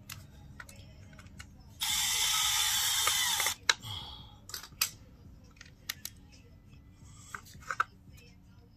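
Screws being driven back into a Graco Ultimate MX sprayer's housing: a loud grinding burst of about a second and a half, then a few sharp clicks and knocks of tools and parts being handled.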